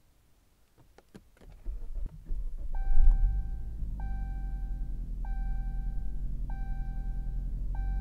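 A few clicks, then a 2015 Chrysler 200's engine starts about two seconds in, flares briefly and settles into a steady idle after sitting in storage all summer. Over the idle a dashboard warning chime sounds five times, about once every second and a quarter.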